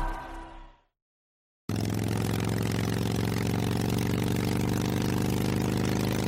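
A song's ending fades out into a second of silence. Then a motorcycle engine starts sounding, idling steadily.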